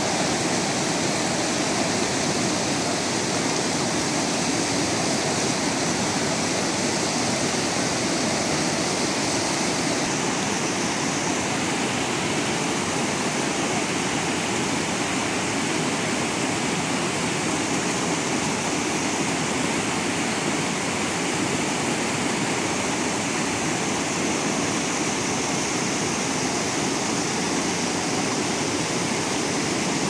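A mountain stream rushing steadily over rocks.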